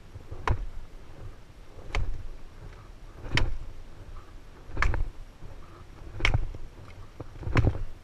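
Wood being chopped: six evenly spaced blows about one and a half seconds apart, each a sharp crack with a low thud.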